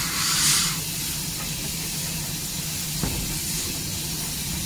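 Saddle-tank steam locomotive on the move: a loud hiss of steam dies away less than a second in, leaving the steady low rumble of the engine running on the rails, with a single knock about three seconds in.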